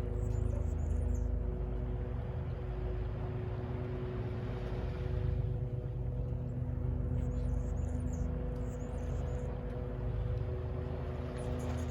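Distant city traffic rumbling steadily under a constant low machine hum, with one vehicle passing and swelling near the middle. Short high chirps come three times.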